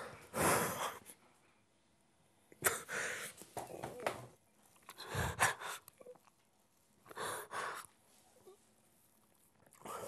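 A man crying: about five short, noisy breaths with quiet pauses between them.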